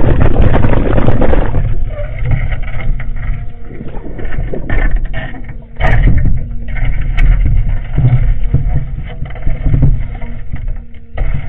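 Caterpillar excavator working in water: a low, uneven rumble with steady engine tones under it and water churning and sloshing, heaviest in the first second and a half.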